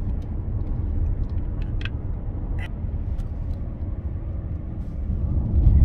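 Road and engine noise inside a moving car's cabin: a steady low rumble, with a few light clicks in the middle and a swell in the rumble near the end.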